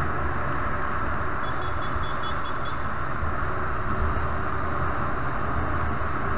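Motorcycle ridden at about 100 km/h through a road tunnel: steady engine drone under a constant rush of wind noise on the microphone.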